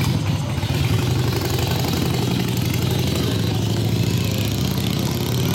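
Motor vehicle engine idling nearby: a steady low rumble with a fast, even pulse that does not change.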